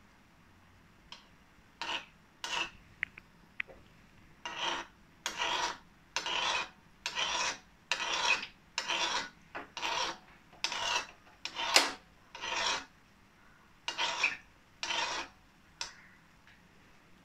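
A steel spoon scraping along the side of a metal kadhai of hot oil in repeated rasping strokes, one to two a second, stirring the oil so the frying gulab jamun balls keep turning. A few light clicks of the spoon come first, and the strokes stop shortly before the end.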